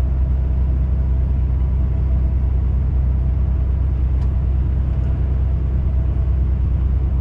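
Steady low drone of a lorry's engine and road noise inside the cab while it cruises along in traffic.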